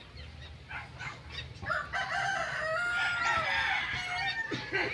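A rooster crowing once, a long call of about two and a half seconds that starts just under two seconds in.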